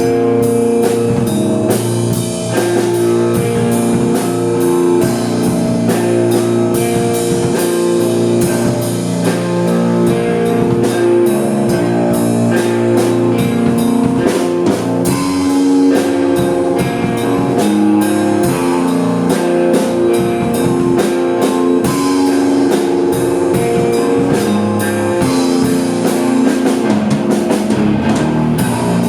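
Rock band playing an instrumental passage: guitar over a steady drum-kit beat.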